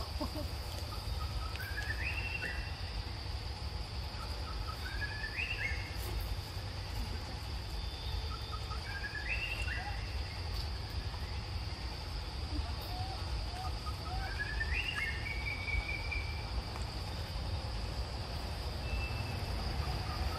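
Forest ambience: a steady high-pitched insect drone, with a bird repeating a short rising whistled phrase four times, a few seconds apart, over a low steady rumble.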